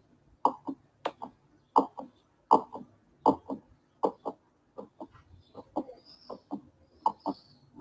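Heartbeat sound: steady paired 'lub-dub' thumps, a little over one beat a second.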